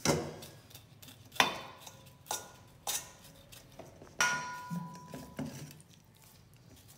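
Kitchen knife scraping skin off a cooked beef tongue and knocking against a stainless steel bowl: about six sharp metallic clinks at uneven intervals, one of them leaving the bowl ringing for about a second.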